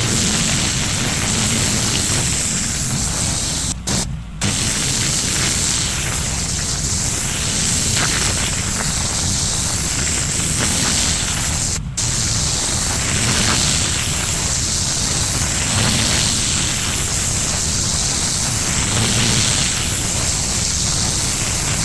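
4000 PSI pressure washer with a turbo (rotating) nozzle blasting water onto pavers: a loud, steady hiss of spray over a low drone. The spray cuts out for a moment twice, about four seconds in and again near twelve seconds.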